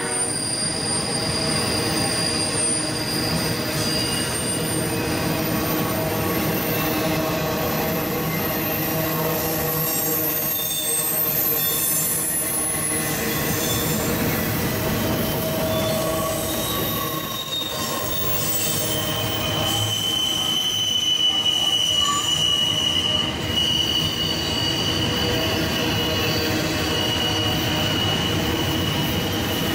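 Norfolk Southern double-stack intermodal freight train rolling steadily past, its well-car wheels rumbling on the rails. Thin, high squealing tones from the wheels come and go and shift in pitch throughout.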